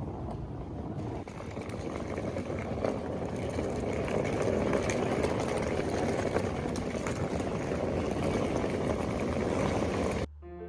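Steady engine rumble under a noisy rush, thickening about a second in and cutting off abruptly near the end, where piano music begins.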